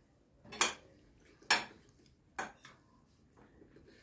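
Cutlery clinking against china dinner plates during a meal: three sharp clinks about a second apart, then a fainter one.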